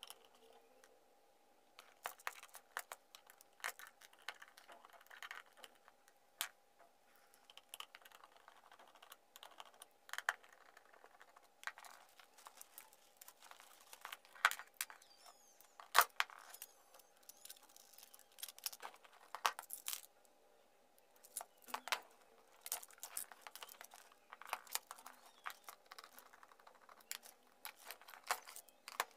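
Irregular clicks, taps and scrapes of the Amstrad E-mailer Plus's plastic screen housing being unscrewed with a screwdriver and prised apart, with one sharper click about halfway through.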